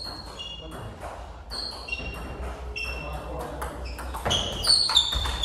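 Table tennis ball being struck by bats and bouncing on the table during a rally: a series of short hollow clicks, each with a brief high ping, coming faster near the end.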